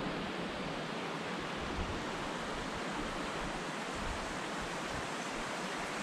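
Steady rush of a rocky creek flowing over stones.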